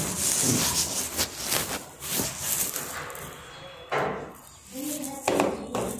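Rustling and knocking of a concealed phone being carried and handled, rubbing against clothing. Brief muffled voices come in about four and again about five seconds in.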